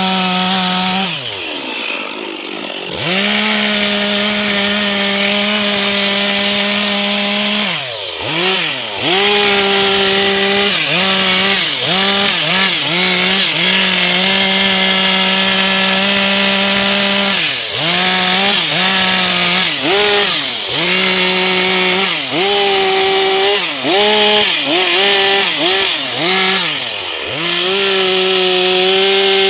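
Two-stroke chainsaw running at high revs while cutting teak wood. The engine pitch drops sharply for about a second near the start, then comes back up. Later it dips and rises again several times in quick succession as the throttle is eased off and opened again.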